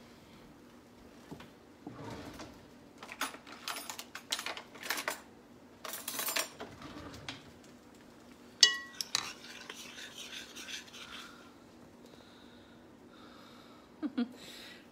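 Kitchen utensils and containers clicking and clattering on a countertop while baking ingredients are measured out, with one sharp ringing clink partway through, over a faint steady hum.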